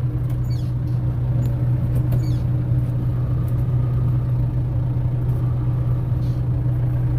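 Steady engine and road noise of a moving vehicle heard from inside the cab, a constant low hum. A couple of faint squeaks come about half a second and two seconds in.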